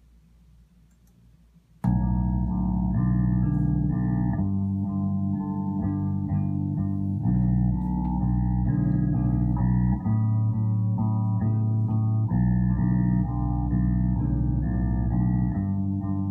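Recorded music played through a pair of Kudos C2 floor-standing speakers driven by a Rogue Sphinx integrated amplifier, starting abruptly about two seconds in, with a prominent bass line. Before it, only faint room hiss and a few small clicks.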